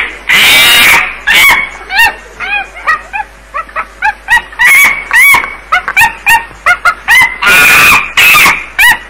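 Loud, clipped, bass-boosted monkey calls: a rapid run of short yelping calls, with two long harsh screams, one just after the start and one near the end.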